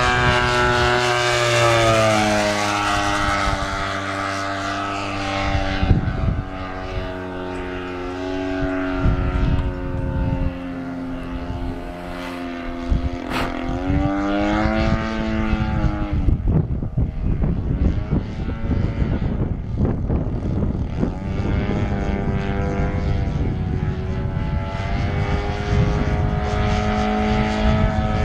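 EF Extra 300 model aerobatic plane's 50cc two-stroke gas engine and propeller in flight. The engine note swings up and down in pitch as the plane manoeuvres and passes by, fades for a few seconds past the middle, then builds again toward the end.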